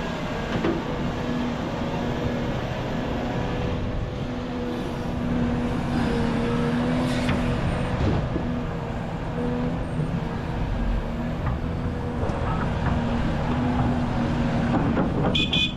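Heavy diesel machinery running with a steady engine hum over a low rumble. There is a short high-pitched squeal near the end.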